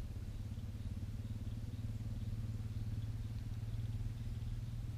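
A motor running steadily with a low, even drone and a fast regular pulse.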